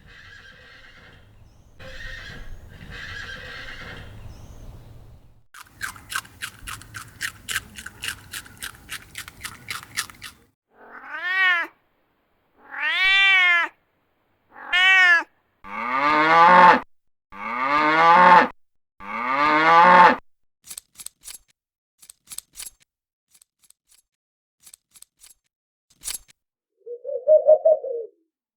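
A series of animal calls: a fast run of short repeated calls, then four short meow-like calls that rise and fall in pitch, then three longer, louder calls, then a few faint clicks and a short low call near the end.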